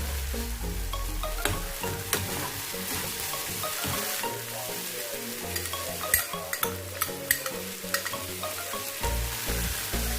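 Food sizzling in a hot pan as it is stir-fried, with sharp clicks and scrapes of a utensil against the pan, most frequent about two-thirds of the way through. Soft background music with held low notes plays underneath.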